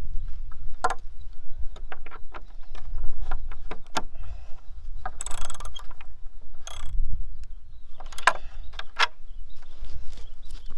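Irregular sharp clicks and knocks of hand tools working on the wooden and metal parts of an old bed frame, over a steady low rumble.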